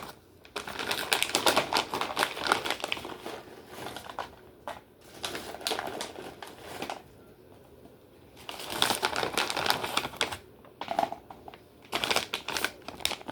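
Dried cranberries (craisins) being shaken from a plastic bag onto a salad: bursts of rapid light ticking and crinkling with short pauses between them.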